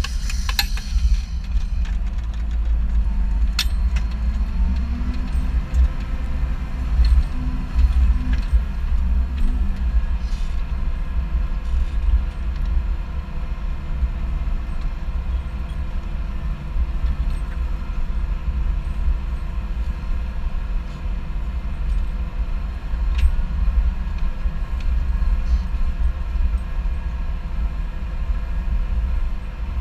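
Large tractor diesel engine running steadily under load while ploughing, a deep continuous rumble with a few light clicks.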